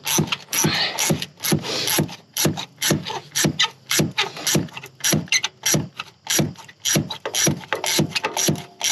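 Socket ratchet wrench being worked back and forth, its pawl clicking in a steady rhythm of quick strokes, a few each second.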